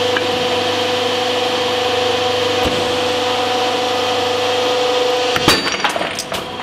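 Hydraulic press running with a steady whine as the ram bears down on a piece of metal. A little over five seconds in, several sharp cracks come close together as the metal gives way and breaks.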